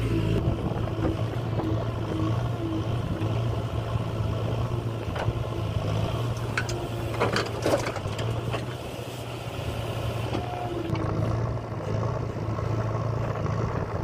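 JCB 3DX backhoe loader's diesel engine running steadily as the hydraulic boom and bucket work, heard from the operator's cab. A few sharp knocks stand out about halfway through.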